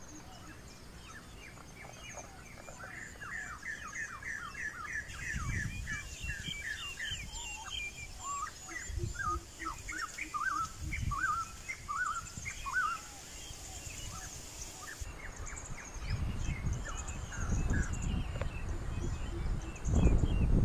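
Forest birds chirping and calling in quick, short notes, with low gusts of wind buffeting the microphone that grow stronger near the end.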